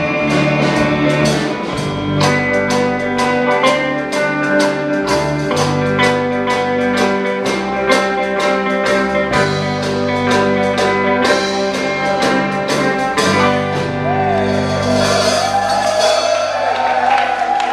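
Live band playing: electric guitars, bass and drums over a steady beat, with a voice singing near the end.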